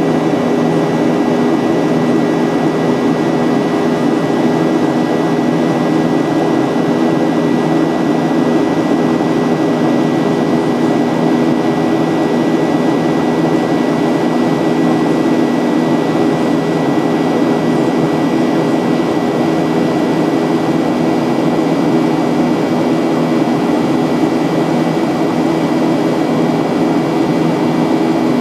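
Cabin noise of a Boeing 737-800 with its CFM56-7B jet engines running: a steady drone of engine and airflow noise with a thin, steady high whine on top, unchanging throughout.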